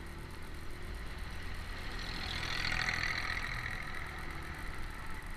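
Small motorcycle engine running steadily in traffic, with a hiss that swells to a peak about halfway through and fades again.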